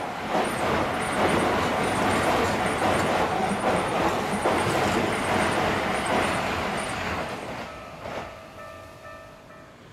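Toei 5500 series electric train passing close by at speed: a steady rush of wheels on rail. It fades away after about seven seconds as the train recedes, with a single knock about eight seconds in.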